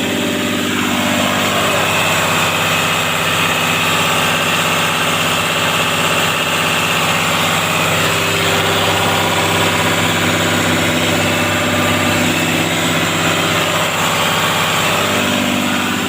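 Cat C6.4 diesel engine of a Cat 320D excavator running steadily. Its speed drops about a second in and changes again near the end.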